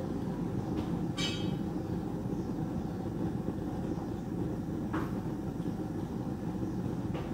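A large pot at a rolling boil over a strong burner, giving a steady low rumble. A short rattle comes about a second in, and a few light clicks follow later.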